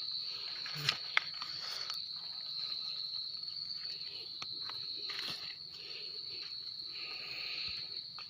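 Insects chirring in a steady, unbroken high-pitched drone, with two sharp clicks about a second in and light rustling.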